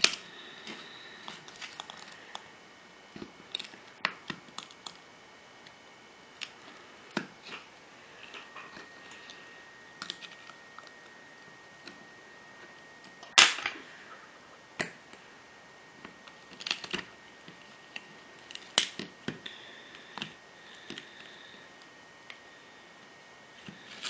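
Irregular sharp clicks and small snaps of a pry tool picking cracked glass off an iPhone 3GS screen, with a louder snap a little past the middle.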